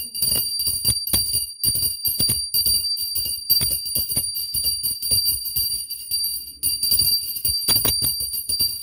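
Puja hand bell rung rapidly and without a break, a fast run of strikes over a steady high ringing, as the aarti lamp is waved.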